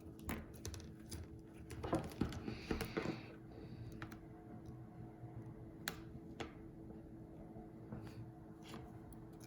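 Faint scattered clicks and short scrapes of small repair tools working at an iPhone 8's stubborn battery adhesive, with a brief rustle about two to three seconds in, over a steady low hum.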